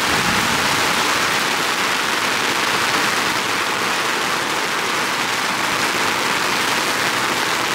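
Heavy rain falling: a steady, dense hiss that holds even throughout.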